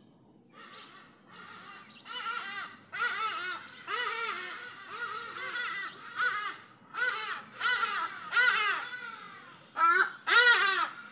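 A large bird calling over and over: about a dozen harsh, arching calls, faint at first, then loud, with the loudest two near the end.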